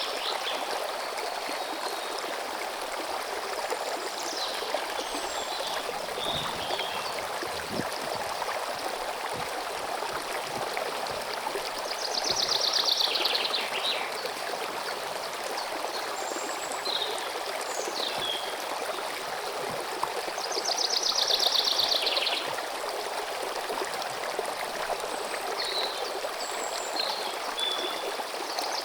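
Steady rushing of a stream of running water. Over it a songbird twice sings a loud, fast trilled phrase of about two seconds that falls in pitch, once about twelve seconds in and again about twenty-one seconds in, with scattered short high chirps from other birds.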